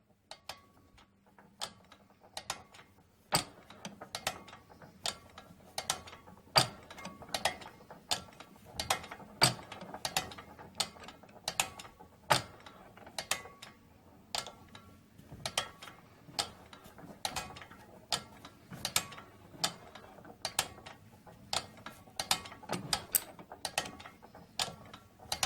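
McCormick-Deering Type M 1½ hp hit-and-miss engine running on its governor: a loud sharp firing crack every two to three seconds, with lighter clicks a few times a second in between as it coasts.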